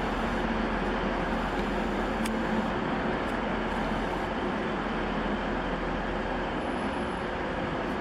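Hitachi intercity express train (LNER Azuma) running past with a steady rumble and a faint hum.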